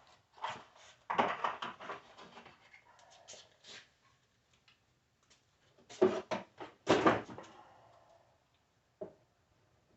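Wooden drawers and drawer faces being handled: short bursts of knocking and sliding, the longest about a second in and two more a little past the middle.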